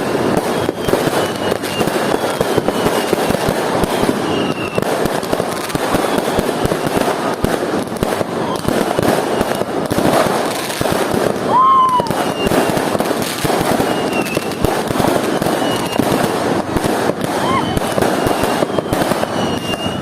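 Many fireworks and firecrackers going off at once, a dense unbroken rattle of bangs. Several thin whistles glide down in pitch through it, with a louder whistle rising then falling about twelve seconds in.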